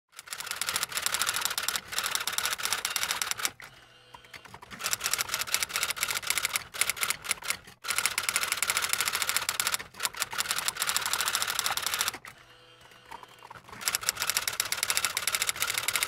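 Rapid typing clicks, a typing sound effect, in quick runs with two brief pauses, about 4 s and about 12 s in.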